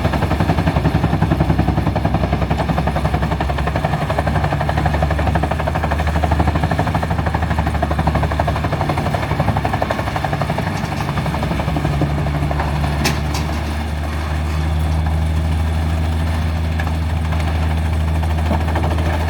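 Heavy diesel machinery at a log-chipping operation running steadily under a dense, rapid rattle. A single sharp click comes about two-thirds of the way through, and the sound dips slightly just after.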